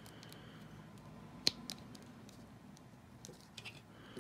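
Faint handling of a plastic Masters of the Universe Origins Clamp Champ action figure as its swappable head is worked on and off: one sharp click about a second and a half in, then a few light clicks near the end.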